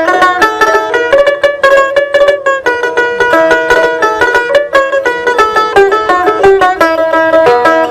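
Dotara, the Bengali long-necked plucked lute with metal strings, playing a fast melody of quickly plucked notes over a repeated low note.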